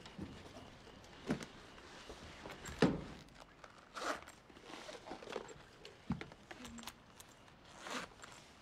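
Bedding and clothing rustling, with scattered soft footsteps and thumps as people move about and get into a bed; the loudest thump comes about three seconds in.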